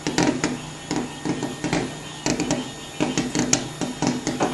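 Fireworks going off: a rapid, irregular string of sharp bangs and pops, about four a second, over a low rumble.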